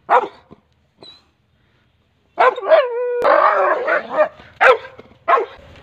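A pitbull barking up at a monkey above it: one bark at the start, a longer drawn-out bark in the middle, then two short sharp barks near the end.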